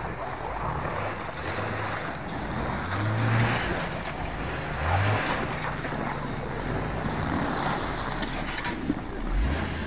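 Hummer H3 engine running under load and revving in swells about three and five seconds in, with a short rising rev near the end. Wind buffets the microphone.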